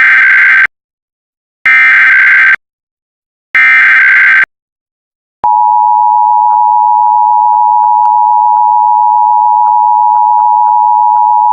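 Three bursts of Emergency Alert System SAME header data, each just under a second long and about a second apart. About five seconds in, the EAS attention signal starts: a steady two-tone alarm of 853 and 960 Hz sounding together, which signals that an emergency alert message follows.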